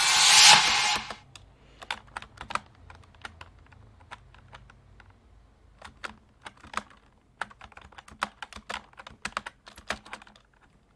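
A short, loud burst of hissing noise from an effect sample being auditioned, fading out about a second in, followed by irregular clicking and tapping of a computer keyboard for most of the rest.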